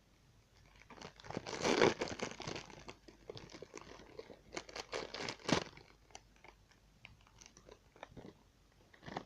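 Plastic packaging bag crinkling and rustling in irregular bursts as it is handled and opened, with a few sharp clicks; loudest about two seconds in and again just after five seconds.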